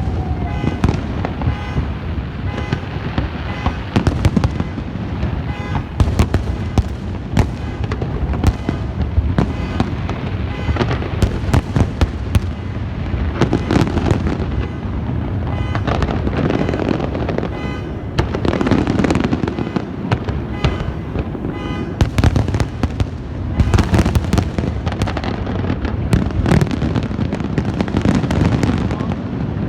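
Fireworks going off in a dense barrage: rapid overlapping bangs and crackles with no pause, busiest in the last third.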